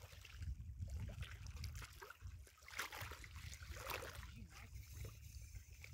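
Wind rumbling on the microphone, with faint, irregular splashing of water at the river's edge.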